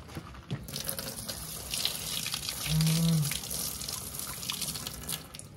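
Running water splashing over a plastic toy figure as it is washed. The splashing starts about a second in and stops just before the end.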